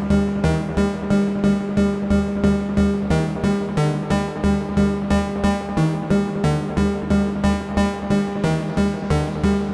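AE Modular synthesizer patch playing a pulsing sequenced electronic pattern, about three to four notes a second, with the notes stepping between a few pitches over a sustained drone.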